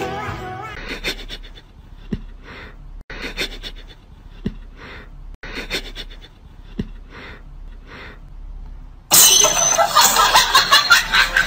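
A small dog breathing in short, sniffing puffs about once a second while it mouths a paper flower toy, with light clicks of the paper. About nine seconds in, a much louder stretch of close rustling and snuffling starts.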